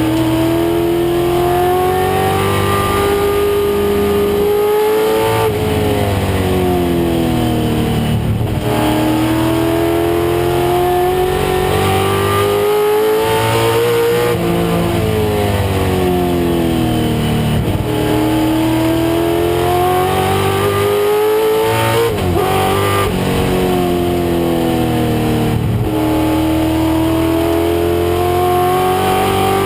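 1996 Ford Mustang race car's engine under hard acceleration. The pitch climbs through the revs and drops at each gear change or lift, about six times, with a longer falling stretch in the middle as the car slows.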